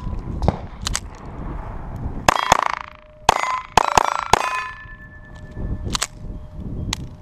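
A string of .22 rimfire pistol shots fired at steel plate targets, the hits answered by ringing metallic clangs from the steel. The shots come quickest around the middle, with the last two spaced about a second apart.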